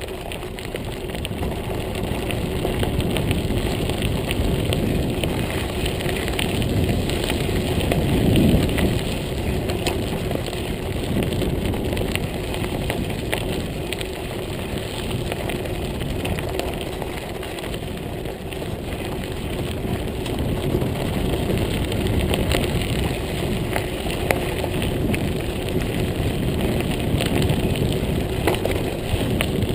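Montague Paratrooper Pro mountain bike tyres rolling over a gravel trail: a continuous crackling crunch of loose gravel over a low rumble, swelling and easing a little with the ride.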